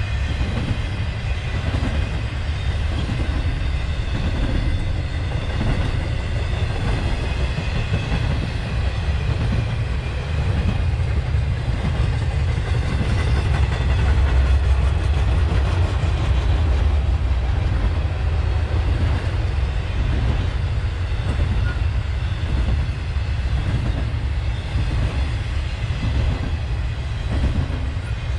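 Intermodal freight train cars loaded with trailers and containers rolling past: a steady low rumble of wheels on rail with a regular beat of wheel clicks.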